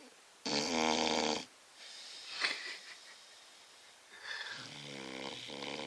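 Vizsla snoring loudly in deep sleep: two pitched snores, the first about half a second in and the loudest, the second longer and softer near the end, with a breathy breath between them.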